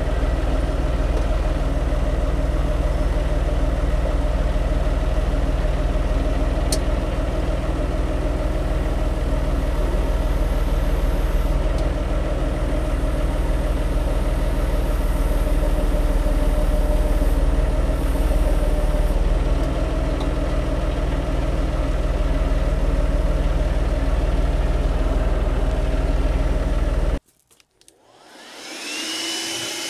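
Tractor engine running steadily, with the front loader at work. It cuts off abruptly near the end, and a handheld blower spins up with a rising whine to a steady high tone, blowing sawdust out of a panel saw.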